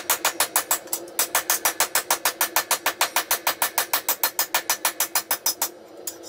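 Rapid, evenly spaced hand-hammer blows, about seven a second, on a red-hot steel knife blank on an anvil. There is a short break about a second in and a pause near the end.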